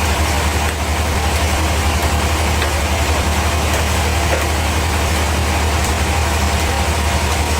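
Band sawmill machinery running with a steady, loud low drone and no change in pace.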